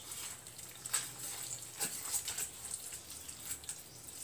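A hand squishing and mixing a wet flour-and-water batter in a steel saucepan, giving irregular wet squishing sounds.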